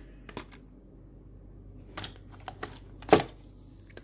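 Light clicks and taps of a hard sunglasses case and small items being handled on a shelf, with a few scattered clicks and one sharp, louder click about three seconds in.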